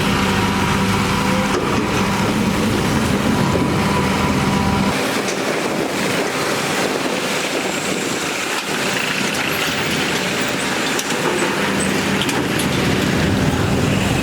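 Heavy diesel construction machinery running: a steady low engine drone for about five seconds, then a rougher, hissier machine noise with the deep drone gone, until the drone comes back near the end.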